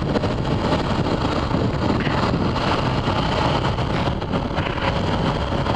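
Sport motorcycle riding at road speed: a steady rush of wind on the microphone over the engine and tyre noise.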